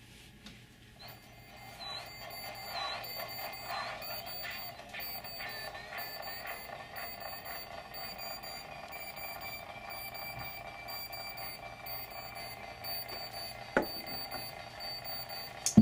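Electronic tones from littleBits synth modules through their small speaker: a steady buzzy drone that starts about a second in, with higher tones gliding up and down as the knobs are turned. Two sharp clicks near the end.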